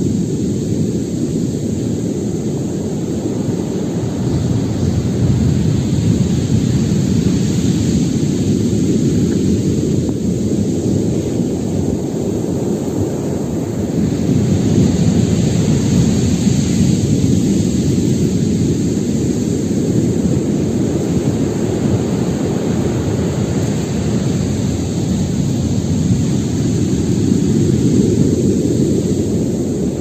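Stormy sea surf: a continuous deep roar of breaking waves that swells louder every several seconds.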